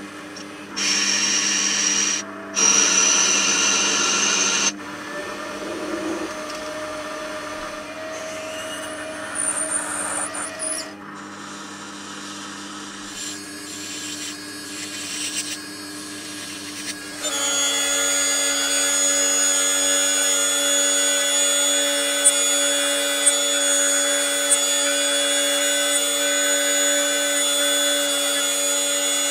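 A small benchtop lathe turning brass stock, with loud cutting spells in the first few seconds and then a quieter steady run. About seventeen seconds in, a high-speed rotary tool with a fine cutting bit starts and runs steadily at a high pitch while cutting into the brass part, with light ticks about once a second near the end.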